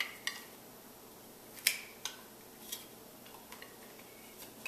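Hard plastic parts of a spiralizer clicking and knocking as it is taken apart and handled: half a dozen short sharp clicks spread out, the loudest about a second and a half in.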